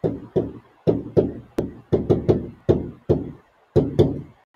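A pen knocking against a touchscreen display board during writing: a run of irregular knocks, two to three a second, each with a short dull ring.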